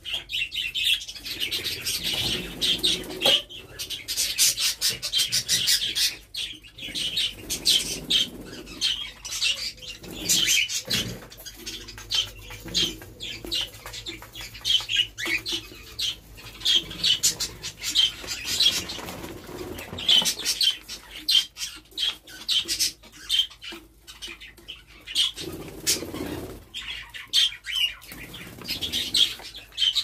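Many caged pet birds, cockatiels and other small parrots, chirping together in a dense, continuous chatter of short high chirps.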